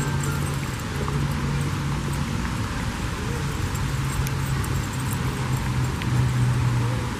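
Steady rain with the low, even hum of a car engine running.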